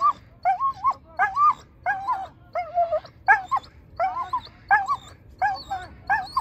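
A dog yipping and whining over and over, about two short high calls a second, each bending up and down in pitch.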